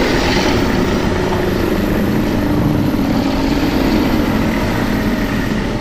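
A loud, steady rumbling creature sound effect of the Alien/Predator kind, held unbroken and beginning to fade near the end.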